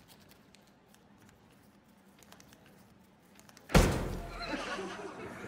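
Near silence with faint light ticks, then, a little over three and a half seconds in, one loud slap of a hand brought down flat on a desktop, with a short low boom after it.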